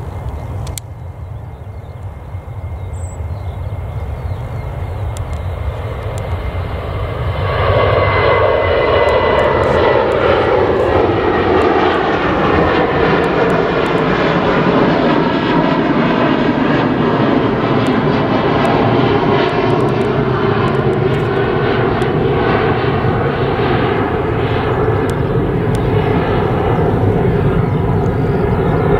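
Boeing 737-800's CFM56-7B jet engines at takeoff power as it departs. A low rumble builds, then about seven seconds in the noise jumps loud, with a whine whose tones slide down in pitch as the jet passes, and it stays loud to the end.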